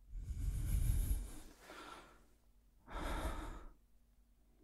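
A person's close-up breathing: a long, heavy sighing breath over the first second and a half, then a second, shorter breath about three seconds in.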